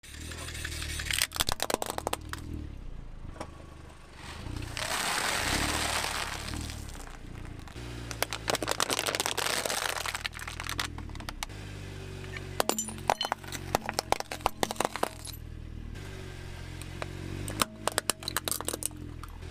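A car tyre rolling over and crushing small plastic objects on asphalt, including a wind-up chattering-teeth toy and plastic egg timers. It gives repeated sharp cracks and snaps, with two longer stretches of crunching, over a low background music bed.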